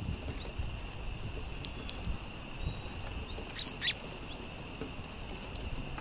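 Sparrows feeding on seed on a wooden picnic table: scattered short high chirps and light pecking, with two sharp chirps a little past the middle standing out as the loudest sounds.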